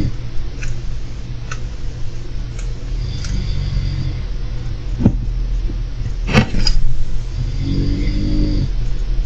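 Person snoring, a drawn-out low snore about every four seconds over a steady low hum. Scattered small clicks, and a louder rattle about six seconds in.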